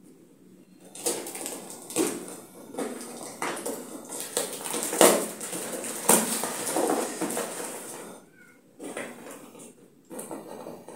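Packing tape being picked at, peeled and ripped off a cardboard parcel, with crackling of the box and its plastic wrapping: a run of sharp tearing rasps from about a second in, thinning out near the end.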